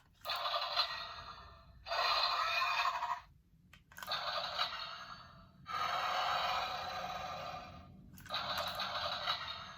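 Zenkaiju Gear toy playing electronic laser-blast sound effects through its small built-in speaker, set off by spinning the gear. There are five separate bursts of one to two seconds each, thin and tinny with no bass.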